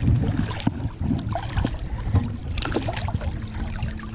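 River water splashing and sloshing close to the microphone, with irregular knocks and rustles.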